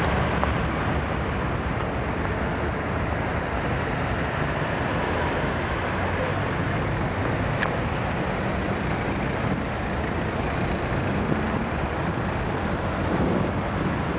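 Steady city road traffic: cars, vans and trucks running around a busy roundabout, heard as a dense, even rumble.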